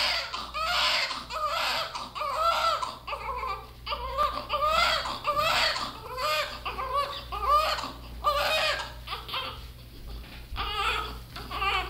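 Newborn baby crying in short, repeated wails, about one a second, getting fainter near the end.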